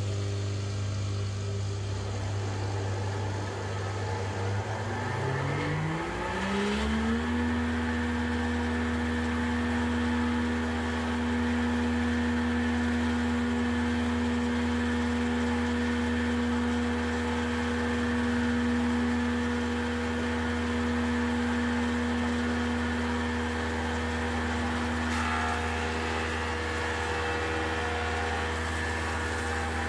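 Electric motor of a combination woodworking machine (planer-jointer) starting up: a low hum, then a whine climbing in pitch for a few seconds as the cutterhead comes up to speed, settling into a steady run about seven seconds in.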